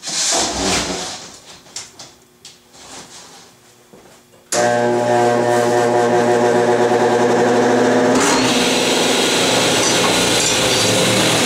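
Knocks and scrapes of a plywood sheet being handled on the table saw's cast iron top, then a motor starts suddenly about four and a half seconds in with a steady hum. About eight seconds in, the General model 350 table saw's blade spins up, adding a louder rushing whir.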